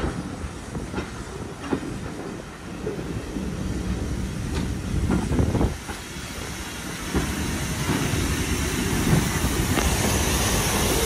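Preserved Furness Railway No. 20 steam train passing slowly: the carriages rumble by with irregular wheel knocks over the rail joints. Near the end the locomotive draws level and a steady steam hiss comes in and grows louder.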